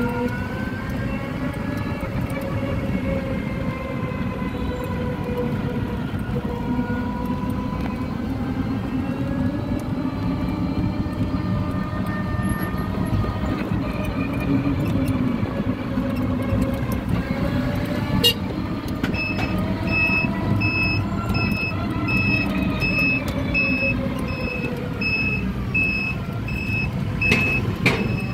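Passenger e-bike (electric tricycle) riding along, its electric motor whine gliding up and down in pitch with speed over a steady road rumble. About two-thirds of the way through there is a click, then a steady electronic beeping, about three beeps every two seconds, runs almost to the end.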